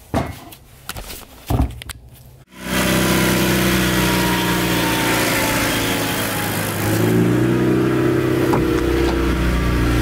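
A few knocks and clicks, then the Honda Civic's engine running steadily at idle, coming in suddenly about two and a half seconds in.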